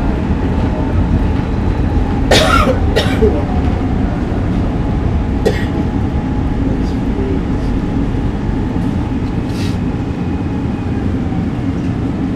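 Running noise inside a SEPTA Market-Frankford Line M4 subway car: a steady low rumble with a faint whine, easing slightly in the second half as the train slows for its next stop. Someone coughs twice about two seconds in, and there are a few short sharp noises later.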